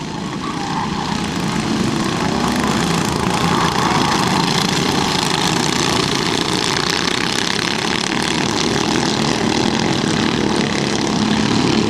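Engines of a pack of racing karts in the 13 hp class running on the circuit, heard from trackside as a dense, steady drone. It swells over the first two seconds as the karts come nearer and then holds steady.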